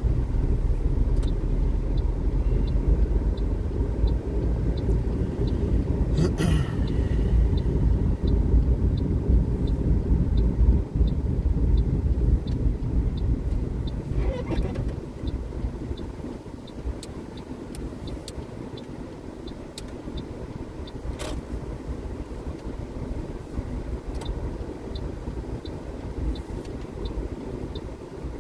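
Car cabin: engine and tyre rumble while the car drives slowly, easing off about halfway through as it slows to a stop at the junction. Over it, the turn-signal indicator ticks steadily, about one and a half ticks a second.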